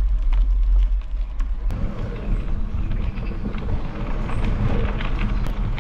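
A chorus of frogs croaking, with wind rumbling on the microphone; the croaking grows denser and louder about two seconds in.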